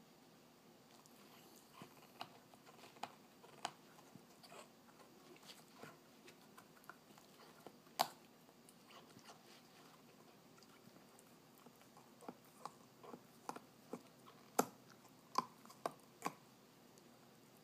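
A puppy gnawing a hard green bone-shaped chew toy: irregular clicks and scrapes of teeth on the toy. The sharpest click comes about eight seconds in, and the clicks grow louder and more frequent near the end.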